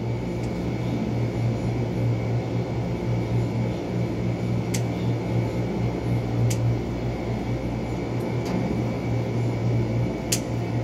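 Wall-mounted air conditioner running with a steady hum. A few light, sharp clicks sound over it.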